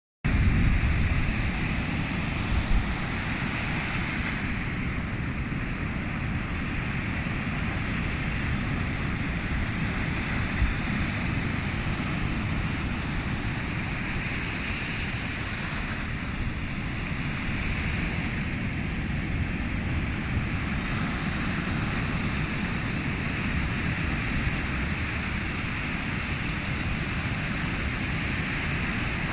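Sea surf washing onto the shore in a steady rush that slowly swells and eases, with a low rumble of wind on the microphone.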